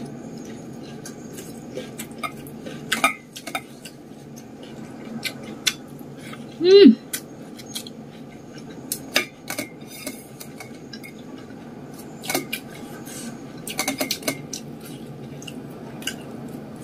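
Hand-eating sounds: fingers working rice against a stainless steel bowl and chewing, heard as scattered soft clicks and ticks with a quick cluster of them about 14 seconds in. About seven seconds in comes one brief pitched sound that rises then falls, the loudest moment.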